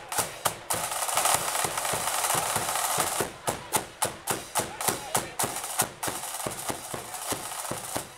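Flute band's drum section, snare and bass drum, playing a march beat. The first few seconds are dense and roll-like, then come sharp, evenly spaced strokes about four a second, ahead of the flutes coming in.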